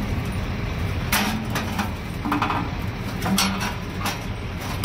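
Steady low rumble of an idling engine, with several short sharp clanks of metal work on the exhaust hardware, the loudest about a second in.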